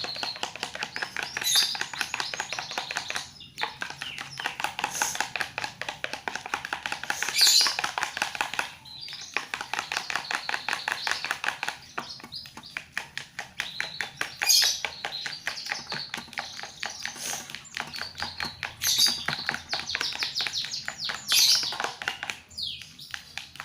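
Liquid soap and water being stirred rapidly in a container to whip it into foam: fast, rhythmic stirring strokes in runs of several seconds, with brief pauses between them.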